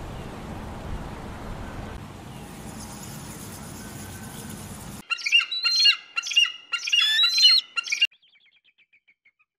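A steady outdoor hiss, then about five seconds in a bird of prey calling: a rapid run of sharp, high, squealing notes for about three seconds that stops abruptly, followed by a few faint calls.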